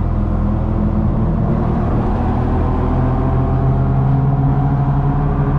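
Steady, loud low drone holding one pitch, like an engine running at constant speed.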